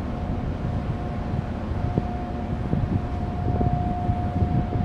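Low rumble of a large container ship passing close by, mixed with wind buffeting the microphone. A faint steady whine comes in about two seconds in.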